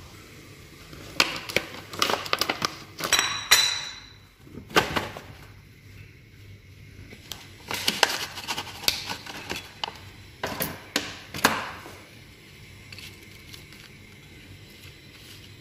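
Stiff plastic food pouch crinkling and crackling in several bursts as it is handled, opened and tipped over a plate, with dried squid pieces sliding out onto it. It goes quieter for the last few seconds.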